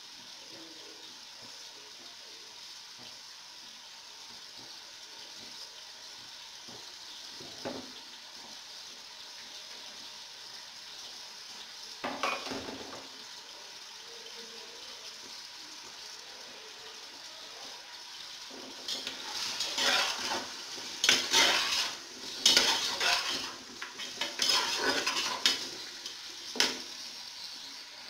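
Chicken and onions sizzling in hot oil in an aluminium pressure cooker while being fried to brown, with a metal spatula knocking once, then clattering about 12 s in, and scraping and clattering against the pot in a run of loud strokes in the last several seconds as the chicken is stirred.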